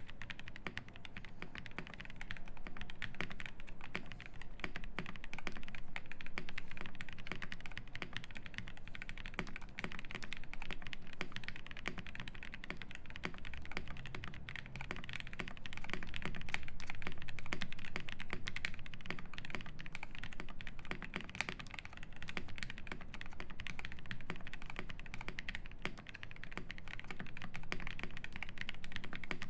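Continuous fast typing on a Cyberboard R3 mechanical keyboard with lubed Cow (UHMWPE) linear switches on an FR4 plate, full foam and GMK keycaps: a dense, even stream of muted key clacks.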